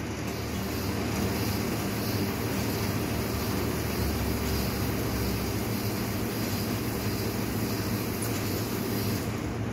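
Chilled water carbonated to 2.85 volumes of CO2 pouring from a bar tap into a pint glass: a steady hiss of the pour that stops near the end.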